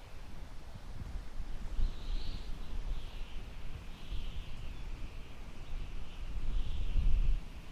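Summer wind gusting through tall grass and buffeting the microphone, a low rumble that swells near the end. From about two seconds in, a high wavering call rises and falls in repeated swells.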